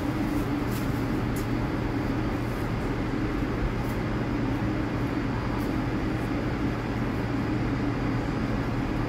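R62A subway train idling at a station platform, its onboard equipment giving a steady hum made of a few low tones that does not change.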